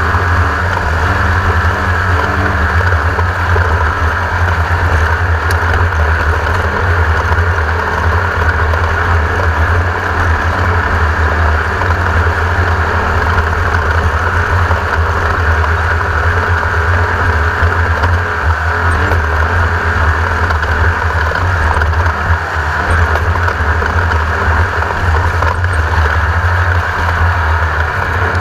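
Class 1600 desert race car's air-cooled Volkswagen 1600 cc engine running hard and steady, a loud constant drone that hardly changes.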